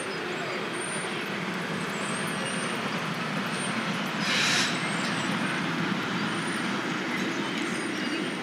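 London Underground train running along the track with a steady rumble, and a brief hiss about four seconds in.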